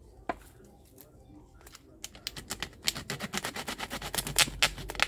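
A plastic soda bottle being cut open. A fast run of crackling clicks starts about two seconds in and grows louder.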